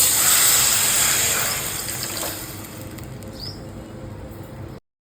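Sizzling hiss from a hot pan as something is added, loud at first and dying down over a few seconds, with the sound cutting off abruptly near the end.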